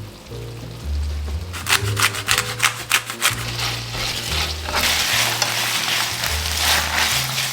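Food sizzling in a frying pan. A quick run of stirring or scraping strokes in the pan comes between about one and a half and three seconds in, and the sizzle grows louder from about the middle on, under soft background music.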